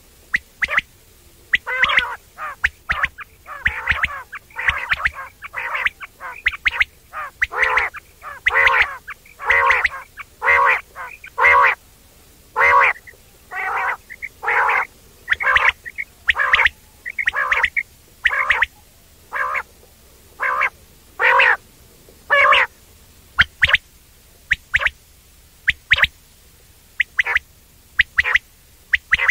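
Quail giving its 'wong wong' call: short nasal notes repeated in irregular runs, often in pairs, about one to two a second.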